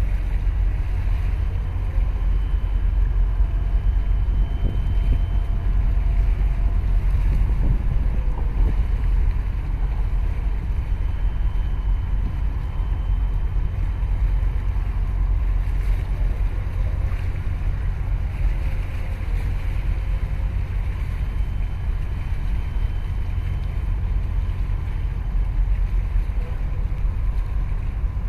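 Steady low rumble of a boat engine under way, with wind buffeting the microphone.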